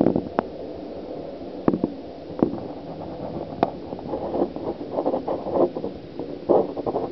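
Muffled gurgling and sloshing of water around a camera held under the surface, with irregular knocks and bumps as it is moved, busier in the second half.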